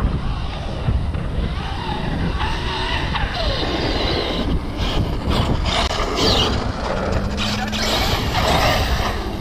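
Wind buffeting the microphone, over the whine of a Traxxas X-Maxx electric RC truck's motor rising and falling in pitch as it drives.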